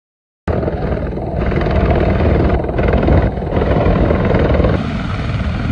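Mi-28N attack helicopter flying past low overhead: loud, steady rotor and turbine noise with a pulsing low rumble, starting abruptly about half a second in.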